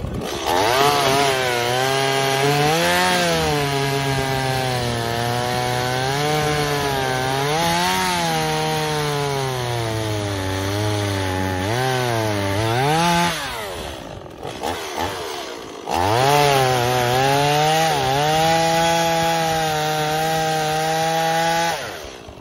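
Stihl two-stroke chainsaw at full throttle in a cut, its pitch sagging and climbing as the chain loads up. It drops off about two-thirds of the way through, then revs up again for a second run that cuts off near the end. The chain is going through into the dirt, which bogs the saw down and makes it run harder.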